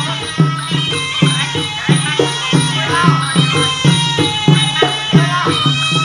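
Traditional Kun Khmer fight music: a sralai reed pipe playing a wavering melody over a steady, quick drum beat.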